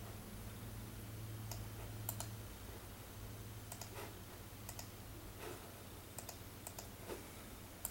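Faint, scattered clicks of a computer being worked, about ten, some in quick pairs, over a low steady hum.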